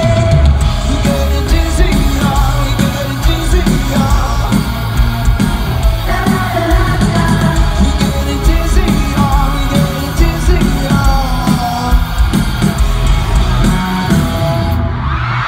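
Live rock band playing at a stadium concert, drums and guitars under a male lead vocal, recorded from inside the crowd. The music breaks off near the end.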